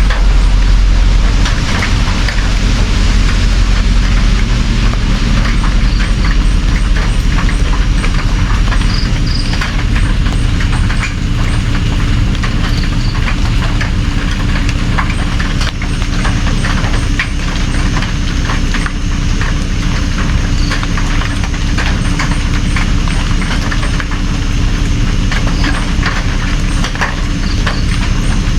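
Steady rain with many separate drop hits over a continuous hiss and a low rumble.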